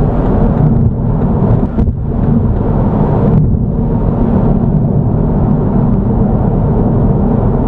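Steady road and engine noise inside a car cruising at motorway speed, mostly a low rumble, with a brief dip about two seconds in.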